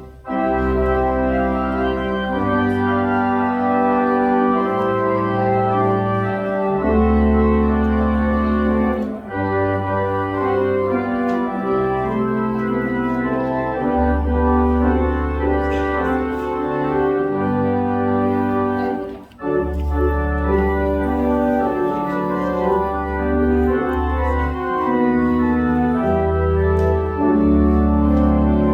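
Church organ playing slow sustained chords over low bass notes, with short breaks between phrases about every ten seconds.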